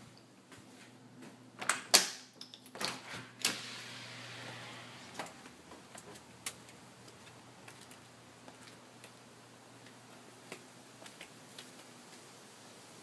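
A back door being unlatched and opened: a quick run of sharp clicks and knocks from the handle and latch about two seconds in, followed by scattered light ticks.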